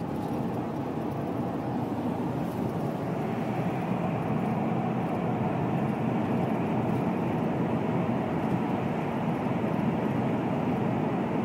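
Steady road noise inside a car driving at speed through a road tunnel: tyres and engine making an even, unbroken rumble.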